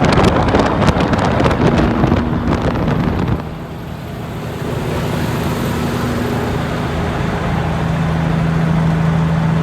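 Big-rig diesel engine running as the truck drives, with road and wind noise. The sound drops off about three and a half seconds in, then builds again, and the engine note grows stronger near the end.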